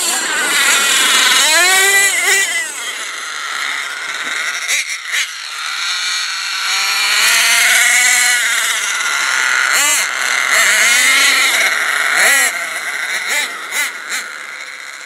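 The twin .26 nitro engines of a Hot Bodies GTX2 RC truck revving up and down again and again as it accelerates and backs off, a high buzzing whine whose pitch climbs and falls. A few sharp clicks come through about five, ten and twelve seconds in.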